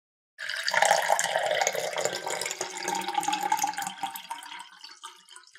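Tea poured in a stream into a glass teacup on a saucer. The splashing starts about half a second in, is loudest early and tapers off near the end.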